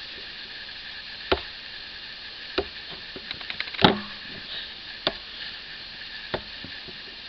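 A hand-held sharpener's titanium carbide pin being worked along the steel edge of a chainsaw bar to knock down a burr. A sharp click comes about every second and a quarter, five in all, the one near the middle the loudest, with a few small ticks between them.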